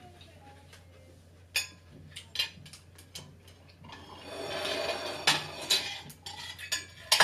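Metal fork and ceramic plates clinking as the plates are handled and stacked. There are separate sharp clinks, and a longer scrape about four seconds in as one plate is moved over another.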